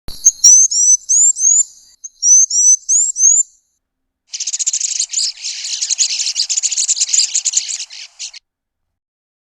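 Blue waxbill calling: two short phrases of high, thin, rising whistled notes, then, after a brief pause, about four seconds of dense, rapid, high-pitched twittering.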